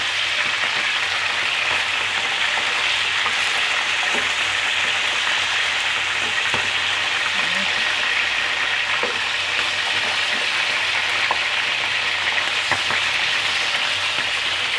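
Chicken pieces shallow-frying in hot oil in a nonstick frying pan, a steady sizzle as they are lightly browned, with a few faint clicks as a spatula turns them.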